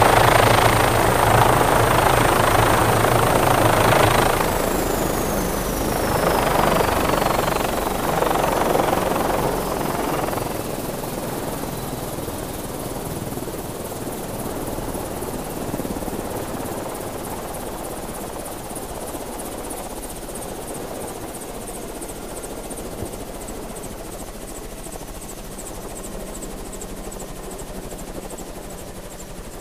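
Helicopter landing: rotor and engine noise loud at first, with a steady high whine that starts falling in pitch about four seconds in. The sound then gradually dies away as the helicopter powers down.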